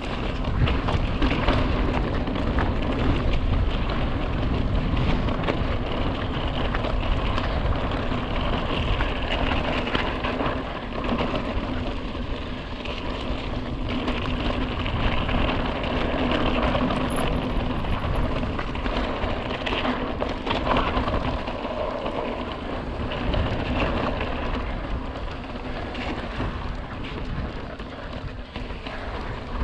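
Steady rushing and crackling of a mountain bike riding over rock and loose dirt: tyres crackling on the ground, mixed with wind on the microphone.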